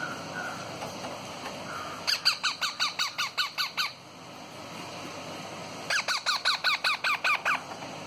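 Indian ringneck parakeet chicks giving rapid, repeated begging calls while being hand-fed. They come in two runs of about a dozen short, downward-sliding squawks, the first about two seconds in and the second about six seconds in.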